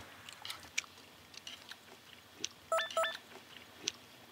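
Faint eating sounds, with small scattered clicks of chopsticks and chewing. About three seconds in come two quick rising electronic blips, a TV editing sound effect.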